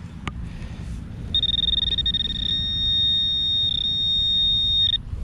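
Handheld metal-detecting pinpointer sounding its alert: a high-pitched tone that starts about a second in as a rapid pulsing beep, then turns into a steady solid tone, the sign of the probe closing right on a metal target in the hole. It cuts off just before the end.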